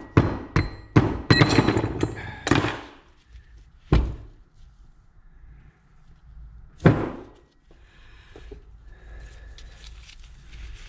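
Metal knocks on a Yamaha Raptor 350 flywheel and starter gear, struck to free a gear seized onto its one-way starter clutch. A quick run of knocks over the first three seconds, then two single knocks about four and seven seconds in, then quiet handling of the parts.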